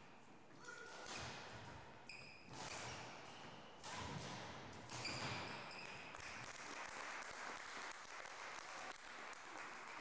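Badminton rally: several sharp racket strikes on the shuttlecock, with shoes squeaking briefly and footsteps on the wooden court floor.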